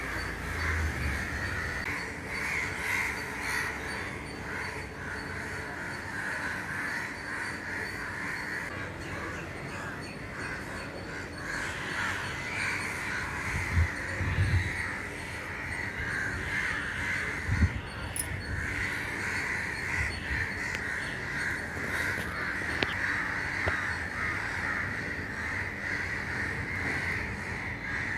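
A flock of crows cawing without pause, many calls overlapping into a dense chorus, with a few brief low thumps about halfway through.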